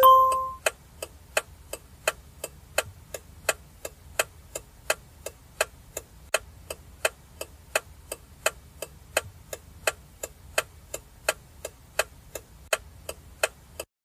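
Microwave oven running: a short beep as it starts, then a low steady hum with a timer ticking about three times a second. It cuts off suddenly near the end.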